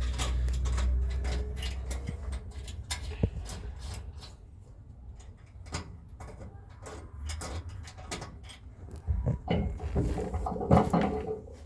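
Scattered clicks and knocks of parts and tools being handled on the vehicle's rear end, with a low rumble in the first two seconds.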